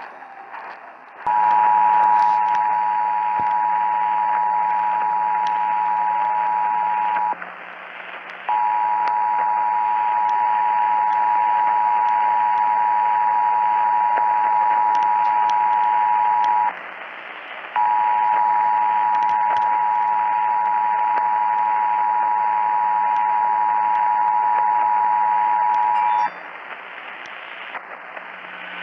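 Emergency Alert System two-tone attention signal, 853 and 960 Hz sounding together, played three times for six to eight seconds each with short breaks, heralding a monthly EAS test. It comes through a hissy broadcast radio feed with a low hum underneath.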